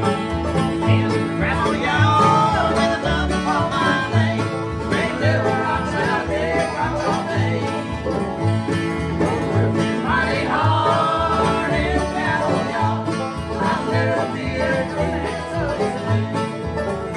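Bluegrass jam on acoustic guitars, banjo and upright bass, the bass plucking a steady note on each beat.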